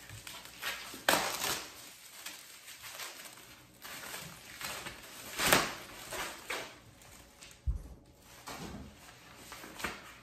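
Clear plastic packaging rustling and crinkling in irregular swishes as it is pulled off a folding chair's mesh seat, with a single low thump of parts being handled about three-quarters of the way through.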